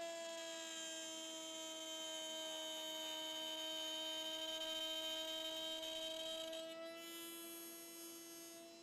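Router mounted in a router table running with a steady high whine while a piece of 18 mm plywood is fed along the fence to cut a channel. The tone changes about seven seconds in.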